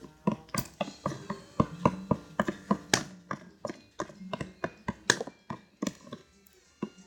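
Spoon knocking and clacking against the side of a bowl while thick homemade slime is stirred, irregular knocks several times a second, dying away near the end.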